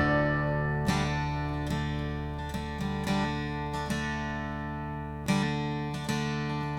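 Acoustic guitar in a quiet instrumental break: chords left ringing and slowly fading, with single picked notes about once a second. A fuller chord is struck about five seconds in.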